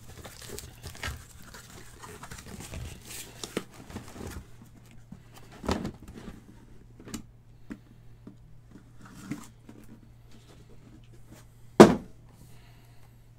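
Packaging being handled on a tabletop while trading-card boxes are unpacked: crinkling and tearing for the first few seconds, then scattered light knocks and one loud thump near the end.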